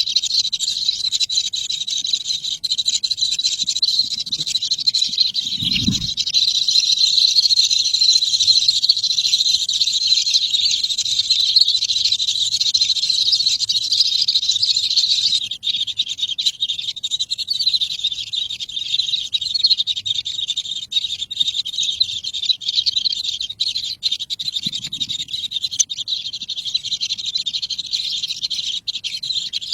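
Baby birds chirping in a continuous high-pitched chorus. The chirping thins out about halfway through, and there is a brief low bump about six seconds in.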